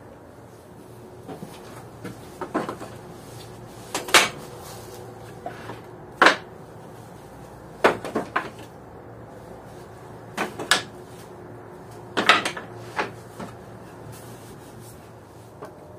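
Irregular sharp knocks and clacks of hard objects being handled, some in quick pairs, every second or two, over a steady low hiss.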